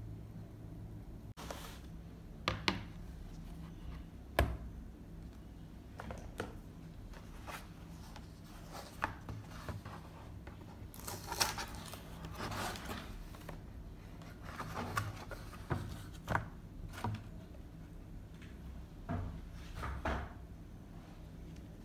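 A cardboard shipping box and its packaging handled by hands on a desk: scattered knocks and taps, with stretches of rustling and scraping of cardboard and plastic packaging. A steady low hum lies underneath.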